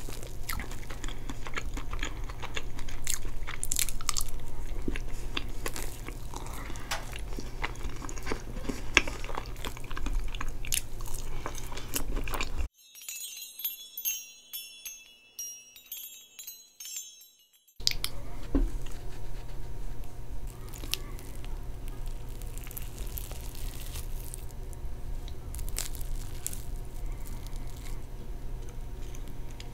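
Close-miked eating of a soft chocolate cake with caramel sauce and whipped cream: chewing and biting, with fork and spoon clicks, over a steady low hum. Near the middle a short chiming jingle replaces it for about five seconds, then the eating resumes.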